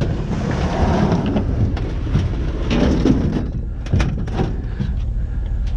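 Clattering and scraping of metal being handled, with a couple of sharp knocks about four seconds in, over the steady hum of a vehicle idling.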